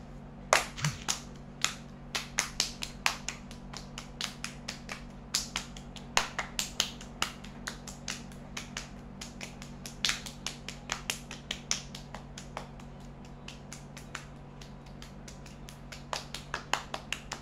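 Hands clapping in a fast two-person clapping game: quick runs of sharp claps with short pauses between them.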